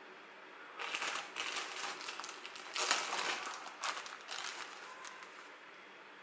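Plastic bag crinkling and rustling as it is handled and opened and leaves are pulled out of it, starting about a second in, loudest midway, dying down near the end.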